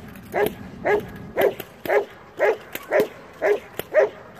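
Working dog barking at a decoy in protection training: a steady run of evenly spaced barks, about two a second.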